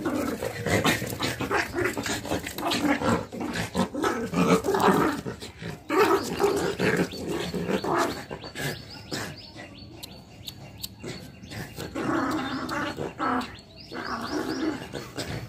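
Two small dogs growling in short, irregular bursts as they play-fight, with a quieter lull about two-thirds of the way through.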